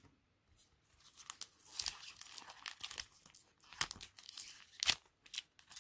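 A trading card pack's wrapper being torn open and crinkled by hand, in irregular rips and crackles that start about a second in. The pack is stuck shut with glue.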